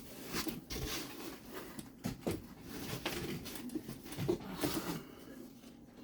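Irregular rustling, scraping and light knocks of boxes and packaging being handled.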